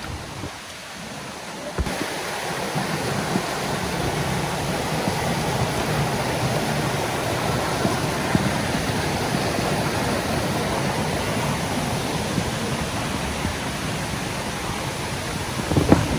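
Steady rush of flowing water from a stream or waterfall, stepping up in level about two seconds in and then holding even.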